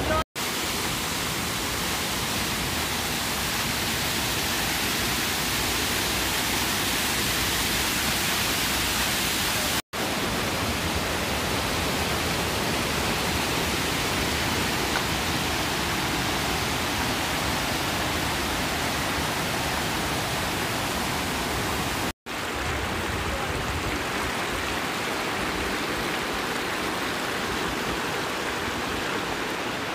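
Mountain stream rushing over granite boulders in white-water rapids and small cascades, a steady loud rush of water. It is broken by brief sudden silences near the start and about 10 and 22 seconds in.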